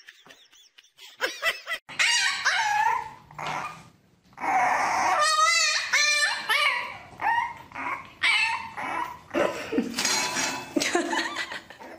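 A puppy barking and whimpering in a string of high, bending yelps, with a quick wavering trill about five seconds in.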